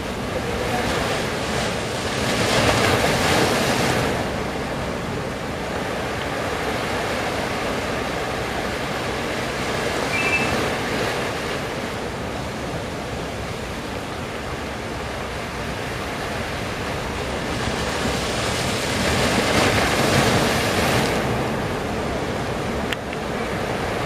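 Large surf waves breaking and washing ashore, a steady rushing that swells louder about two seconds in and again near the end as bigger waves break.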